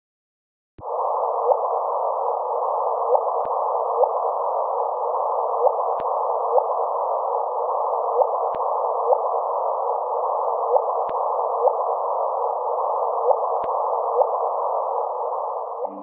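Gravitational-wave detector data played as sound: a steady band of hiss with a short rising chirp repeating roughly every second, the 'chirp' of two black holes merging. Faint clicks sound every two to three seconds.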